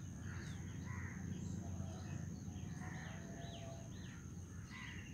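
Wild birds calling in a woodland, a series of short falling chirps and a few thin whistles, over a low steady rumble and a thin, steady high-pitched tone.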